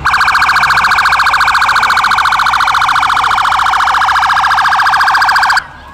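Emergency vehicle's electronic siren sounding one loud, steady, fast-pulsing tone for about five and a half seconds, then cutting off suddenly.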